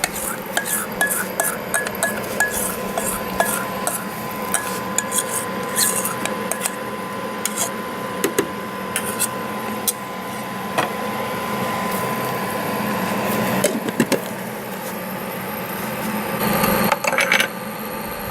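A kitchen utensil scraping and clinking against a bowl as thick pancake batter is transferred into a batter dispenser: quick taps at first, then slower scraping, with a louder scrape near the end.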